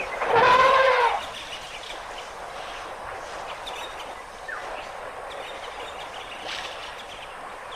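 Elephant trumpeting once, a high, horn-like call of about a second near the start, followed by a quieter steady outdoor hiss.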